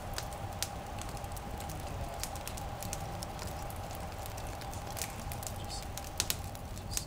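Wood campfire crackling in a steel fire pit, with irregular sharp pops and snaps over a steady faint tone.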